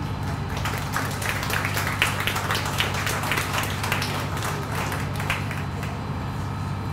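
A small audience applauding, the clapping building up and dying away after about five seconds, over a steady low hum.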